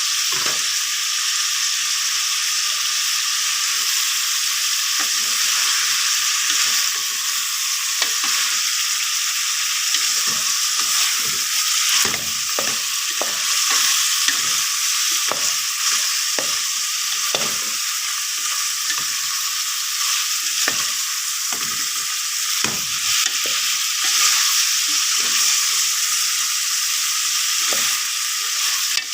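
Food sizzling steadily in hot oil in a pan while it is stirred, the utensil scraping and knocking against the pan at irregular moments.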